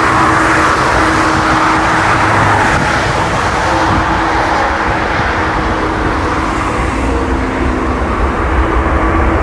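Airbus A380's four jet engines at takeoff thrust as the airliner rolls down the runway and climbs away: a loud, steady rushing noise with a faint hum beneath it.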